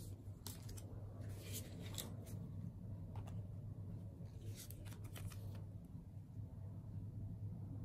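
Oracle cards being handled on a wooden table: short sliding and tapping strokes as cards are swapped and set down, coming in several small clusters over a faint steady low hum.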